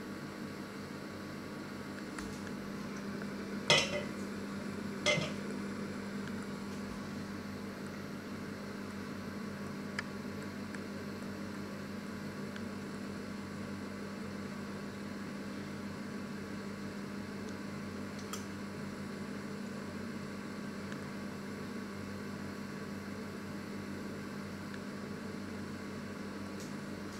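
Panasonic inverter microwave oven running with a steady hum. Two sharp clicks sound about a second and a half apart a few seconds in.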